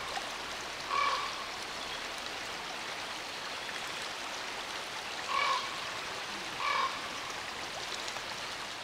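Steady rush of running water, with short animal calls about a second in and twice more past the middle, about a second apart.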